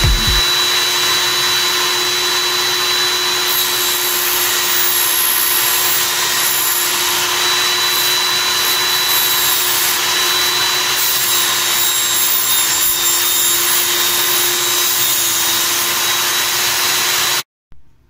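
Electric power saw cutting aluminium chequer plate: a loud, steady motor noise with a constant hum and whine that cuts off suddenly near the end.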